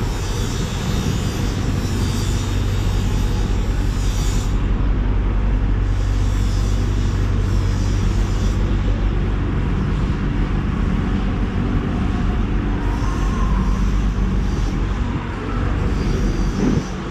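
A steady low rumbling drone with a constant hum, like machinery running, with no sharp knocks or cuts standing out.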